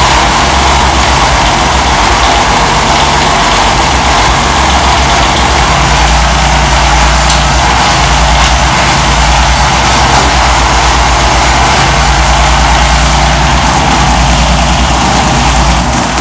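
John Deere 332 garden tractor's three-cylinder Yanmar diesel engine running steadily, just after its fuel system has been bled of air.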